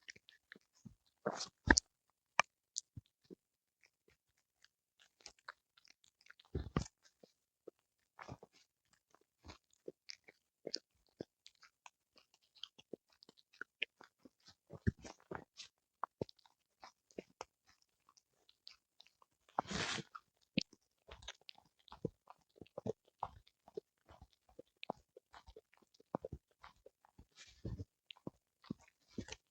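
Pomeranian–Spitz mix dog chewing and crunching a whole eel: irregular crunches and clicks, with a louder, denser run of crunching about twenty seconds in.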